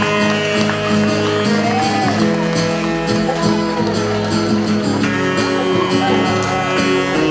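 Live band music played on stage, with a strummed acoustic guitar among the instruments.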